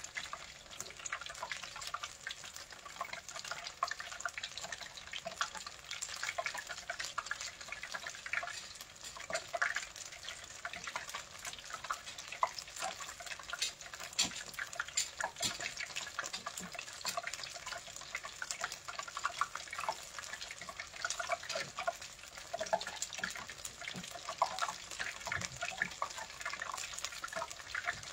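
Flour-battered chicken pieces deep-frying in a pot of hot oil: a steady sizzle full of small crackles and pops.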